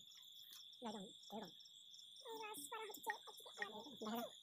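Night insects trilling, one steady high note with a faint rapid ticking above it.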